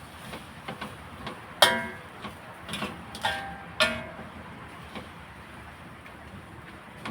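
A metal spatula clanks against a wok while stir-frying wide rice noodles. There are four ringing strikes in the first four seconds, then only a low steady hiss from the pan.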